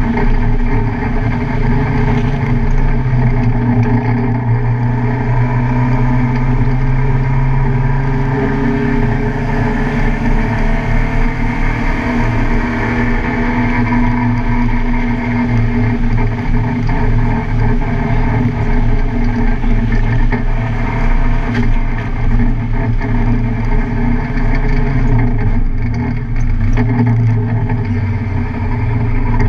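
Car engine running continuously at speed on a race track, its pitch drifting up and down gently, with a brief dip and recovery about 25 seconds in.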